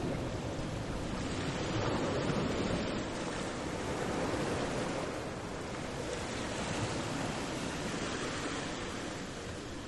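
Steady rushing outdoor noise with no distinct events, swelling a little between about one and three seconds in and again around four seconds.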